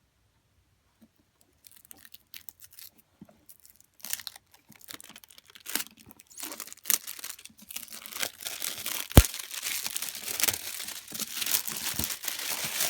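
Packaging being opened by hand: sparse handling clicks at first, building into steady crinkling and tearing, with one sharp click a little past the middle as the loudest sound.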